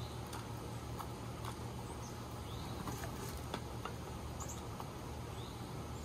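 Small songbirds giving short, high chirps and chip notes a second or two apart, with faint ticks between them, over a steady low background hum.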